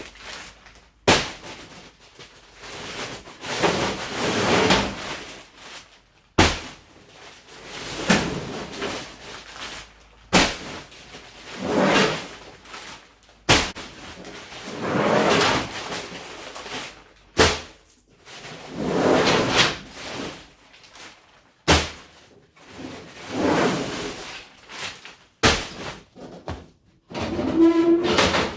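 Loose gravel being poured from bags into a concrete inspection pit. A rushing rattle of stones lasts a second or two and repeats about seven times, each pour preceded by a sharp click or knock.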